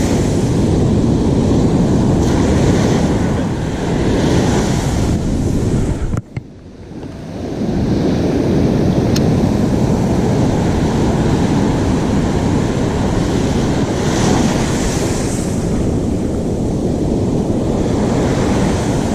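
Ocean surf rolling in on the beach, with wind buffeting the microphone, a steady loud roar. It drops away sharply about six seconds in and then swells back.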